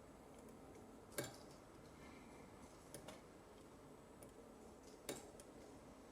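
Faint, sharp clicks of a half-diamond lock pick working the pins of a 6-pin Euro cylinder under tension: three clicks, the loudest about a second in, then near three and five seconds in.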